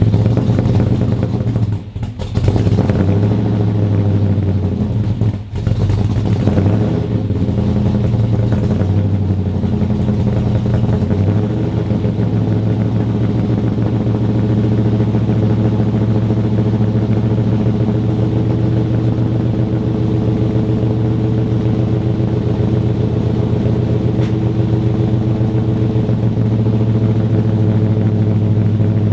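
1964 Chevelle's engine running at idle just after starting, a little uneven for the first several seconds, then steady.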